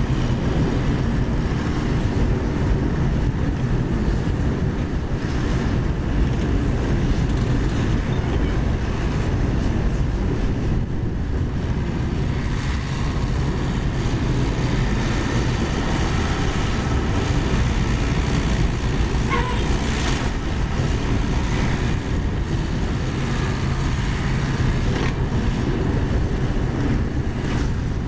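Komatsu PC75UU mini excavator's diesel engine running steadily as it digs a trench.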